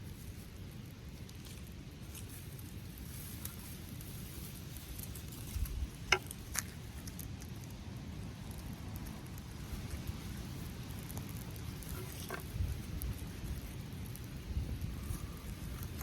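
A small friction-fire flame in tinder crackling faintly, with a few sharp pops about six seconds in and again near twelve seconds, over a low rumble.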